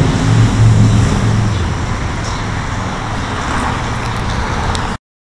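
Steady road traffic noise from vehicles passing on the freeway, a continuous low rumble; it cuts off suddenly near the end.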